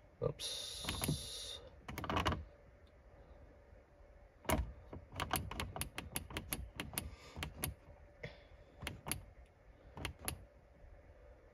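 Push buttons on an Innovate SCG-1 boost controller gauge being pressed by a fingertip, making a series of light clicks, several a second through the middle of the stretch. A short burst of hissing noise comes near the start.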